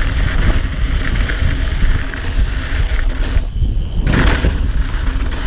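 Wind buffeting an action camera's microphone over the tyre and trail noise of a Yeti SB5 mountain bike being ridden on a dirt trail. A brief lull about three and a half seconds in.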